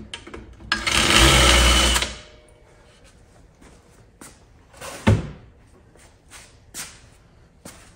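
Cordless drill running for about a second and a half as it bores a rivet hole, then a few light knocks and one sharper clunk about five seconds in.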